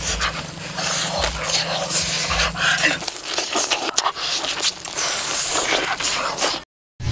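Crunching and chewing as a crispy-skinned roast pork belly is bitten into and eaten, with close mouth noises; the sound cuts off abruptly near the end.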